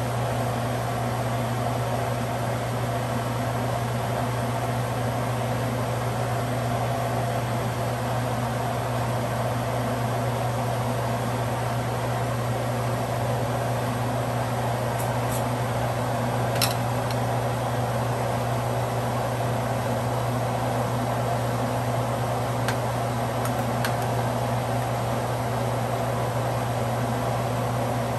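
A steady fan hum in a kitchen, with a few light clinks of a pot lid and cooking utensils around the middle and again a little later.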